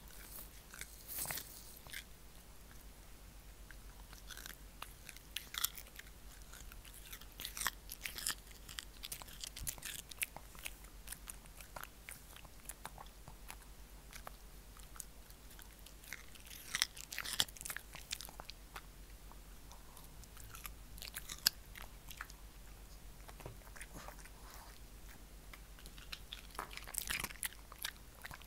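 Shih Tzu crunching and chewing a raw cucumber stick held out by hand, in clusters of crisp bites with short pauses between them.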